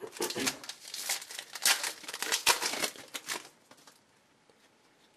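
A trading-card pack wrapper being torn open and crinkled: a quick run of sharp rustling and tearing that stops about three and a half seconds in.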